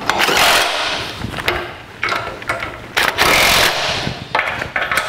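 Cordless power driver with a socket running in a series of short bursts, four in all, tightening the mounting bolts of a manual steering gear box to its bracket on a steel frame.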